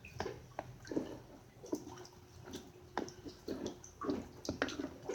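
Clear glue and Tide slime being pulled off a bowl and squeezed by hand: irregular sticky clicks and soft wet squelches.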